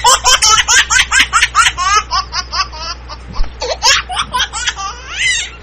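A baby laughing hard: a fast run of laughs for about two seconds, then shorter, more scattered laughs.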